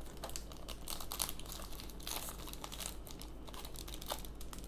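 Foil Yu-Gi-Oh booster pack wrapper crinkling in a run of irregular crackles as it is torn open by hand.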